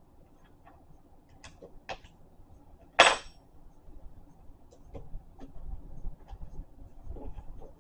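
Handling noise: scattered light clicks and metal clinks as a tool and small parts are moved and set down, with one sharp clack about three seconds in.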